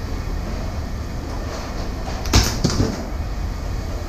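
Scrap metal being handled: one sharp clank about two and a half seconds in, ringing with a falling pitch, over a steady low rumble.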